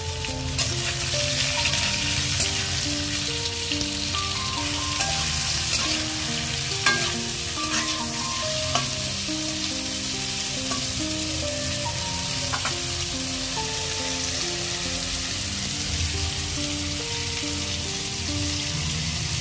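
Potatoes frying in hot oil in a kadai with a steady sizzle, and a wooden spatula scraping the pan a few times. Soft background music with held notes plays under it.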